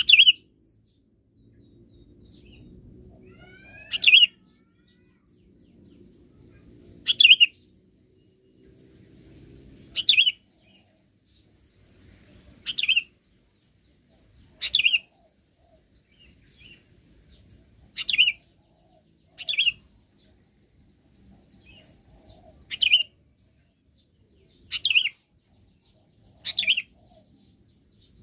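Sooty-headed bulbul (kutilang) calling: short, sharp notes, one every two to three seconds.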